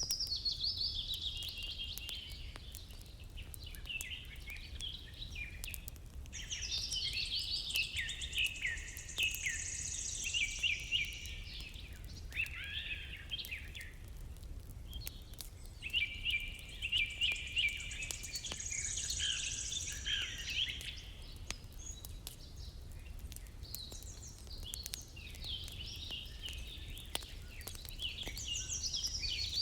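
Songbird singing long, warbling phrases of quick chirps and trills, a few seconds each with pauses of several seconds between them, over a steady low rumble of background ambience.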